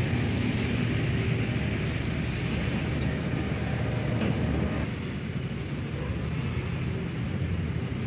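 Steady low rumble of traffic and road noise, easing a little about five seconds in.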